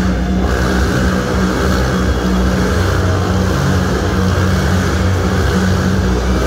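Motorcycle engine running at steady revs inside a steel-mesh globe of death, a loud continuous engine drone with no break.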